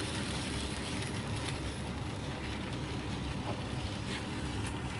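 Bachmann N-scale model locomotive running round a small oval of E-Z Track: a steady low hum from its small motor and wheels, with a few faint clicks.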